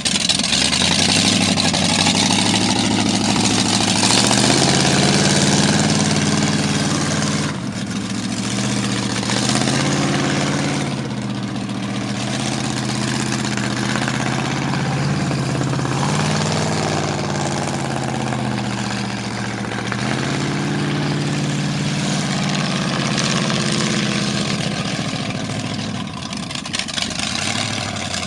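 An engine running, its speed rising and falling several times, over a steady rushing noise.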